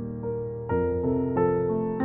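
Soft background music: sustained keyboard notes, with new notes coming in every few tenths of a second from under a second in.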